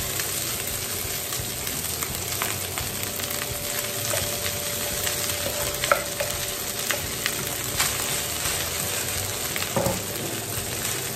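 Cooked rice frying in hot oil with garlic in a wok, a steady sizzle, while a spatula scrapes and stirs it to loosen the grains. Sharp clicks of the spatula against the wok and bowl come now and then, loudest about 6 and 10 seconds in.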